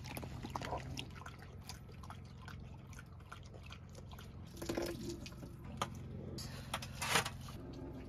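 Dogs lapping whey from a metal pan: a run of small wet laps and clicks over a steady low hum, with two louder sounds, one near the middle and one near the end.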